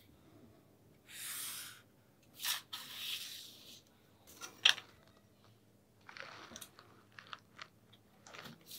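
Twin-tip marker drawing straight lines along a clear plastic ruler on paper: a few scratchy strokes of a second or so each, with the ruler being shifted and set down on the paper between them. A sharp tap near the middle is the loudest sound.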